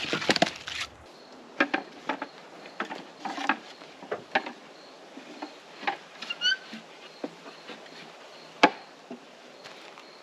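Irregular knocks and clicks, with a louder clatter at the start and a single sharp knock about eight and a half seconds in.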